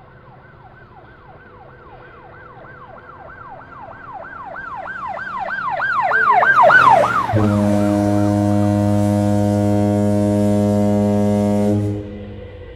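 Model railroad sound effects: a siren yelps up and down about three times a second, growing steadily louder. About seven seconds in it gives way to a loud, steady multi-tone locomotive horn chord, which is held for about four and a half seconds and then cut off.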